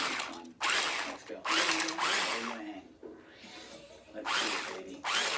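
Handheld electric stick blender with a whisk attachment running in bursts, whisking dry bath bomb powder in a metal bowl. It stops for about a second and a half near the middle, then runs again.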